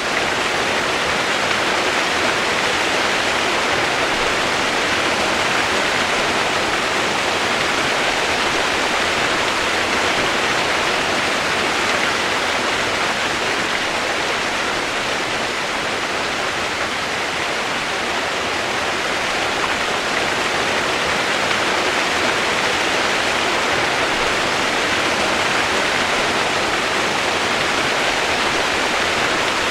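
Steady rushing water: an even, unbroken hiss with no separate splashes or drops.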